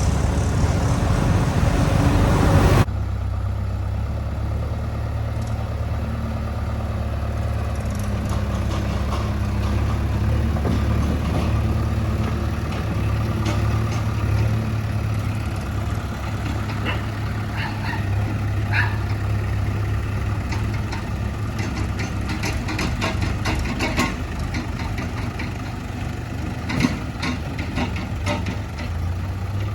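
Diesel engine of heavy farm machinery running steadily, with scattered sharp clanks and knocks over it. The sound shifts abruptly about three seconds in from a louder, noisier engine to a steadier, lower hum.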